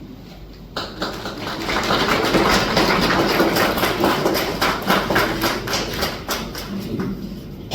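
Audience applauding: many hands clapping that starts suddenly about a second in, swells, and thins out near the end.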